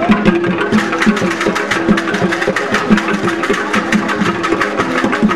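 Percussion music for an Oku juju masquerade dance: short pitched drum beats repeat in a fast, steady rhythm over dense rattling and clicking.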